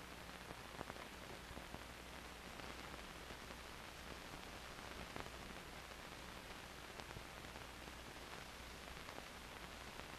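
Faint steady hiss and low hum of a blank 16mm film soundtrack, with a few faint crackles.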